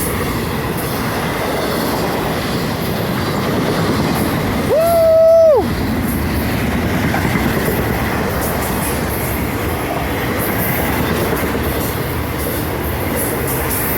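Florida East Coast freight train passing at speed: a steady rumble and clatter of cars rolling over the rails. About five seconds in, one high tone rises, holds for about a second and drops away, louder than the train.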